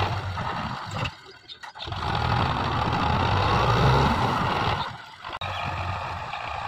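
Belarus 510 tractor's diesel engine running under load as it tows a trailer heaped with soil, its pitch rising and falling in the middle, with two brief drops in level.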